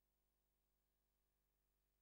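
Near silence, with only a very faint steady hum and no sound of the train.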